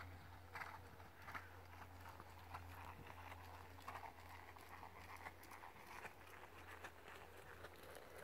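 Faint, muffled hoofbeats of a ridden horse on a soft, chipped arena surface, a beat about every two-thirds of a second, over a steady low hum.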